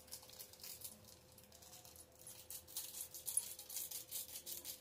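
Foil seasoning sachet being shaken and tapped out over a steel pot: a quick run of crinkling, rattling rustles that gets busier partway through.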